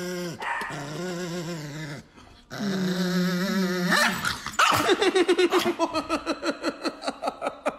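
Small white dog growling and snarling in long wavering bouts while its face is being kissed. In the second half it gives way to a fast run of short, sharp cries, about four or five a second.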